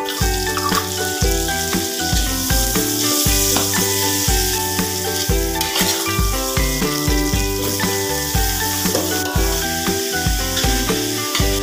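Chopped ingredients sizzling in hot oil in an aluminium wok as they are tipped in and stirred. Background music with a steady beat plays throughout.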